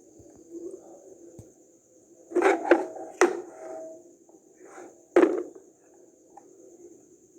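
A few sharp knocks and clicks of hard objects being handled and set down, with the loudest about two and a half seconds in, again a little after three seconds, and once more past five seconds.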